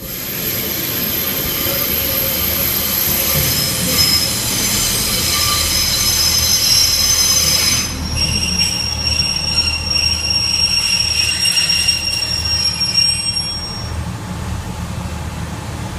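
A Pacer railbus (British Rail Class 144 diesel multiple unit) running slowly into the platform. Its wheels squeal in high, held tones over the low rumble of the train. The squeal shifts to a different pitch about halfway through and dies away a couple of seconds before the end.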